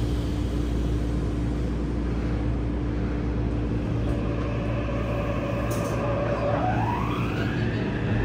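Mitsubishi IGBT-VVVF traction inverter and motors of a Yokohama subway 3000S train, heard inside the car. A steady hum runs first, then the motor whine rises in pitch about six and a half seconds in and levels off as the train starts to pull away.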